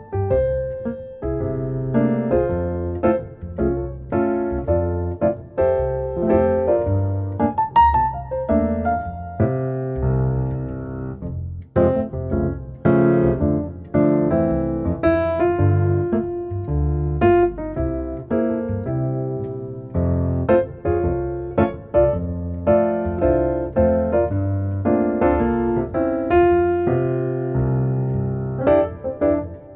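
Background piano music: a solo piano playing a steady flowing melody over chords.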